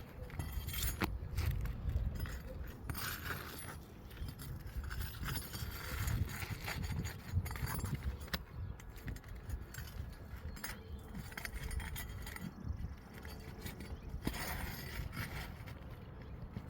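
Asphalt roof shingles being pried up by hand, their seal strips breaking loose: irregular scraping and crinkling with scattered sharp clicks. The shingles are hot and soft, so the seals give with little resistance.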